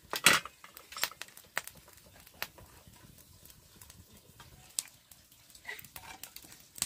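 Irregular clinks and knocks of kitchen utensils and cookware. The loudest comes just after the start, then single light taps every second or so.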